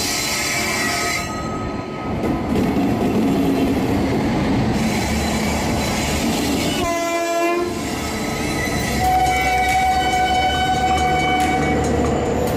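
Rajdhani Express train running past with its locomotive horn sounding, the horn's pitch dropping briefly about seven seconds in and a long steady blast near the end.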